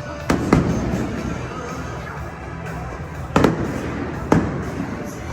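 Aerial fireworks bursting: four sharp bangs, two in quick succession near the start and two more about three and four seconds in, each trailing off in an echo. Music plays underneath.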